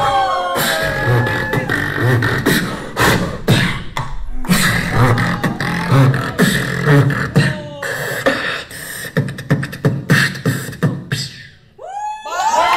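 Beatboxing into a handheld microphone with the hand cupped around it: a steady beat of kick-drum thumps and sharp snare clicks, with pitched vocal notes woven in. It breaks off briefly near the end.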